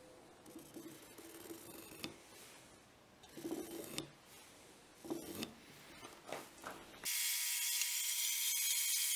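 Wooden blocks being handled and set down on a wooden bench: scattered light knocks, taps and scrapes. About seven seconds in, a band saw takes over, running with a steady whir and a high hum.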